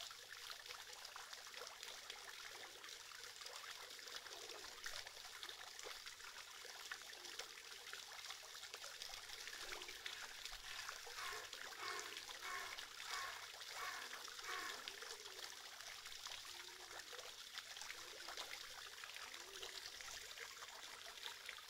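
Fountain jets splashing and trickling steadily into a stone basin. About halfway through there is a short run of quick, repeated high notes.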